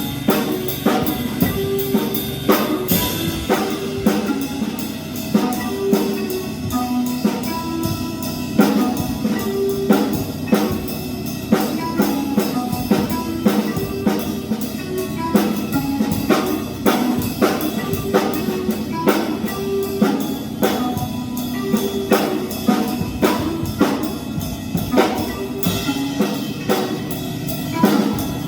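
A drum kit played freely in a jazz-like way over an electronic backing track. Dense, irregular hits run throughout, set against short, repeating pitched notes.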